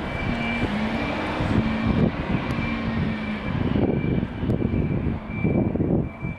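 Wind buffeting the microphone: a loud, gusty low rumble that swells in the second half. A faint tone steps between two low pitches in the first few seconds.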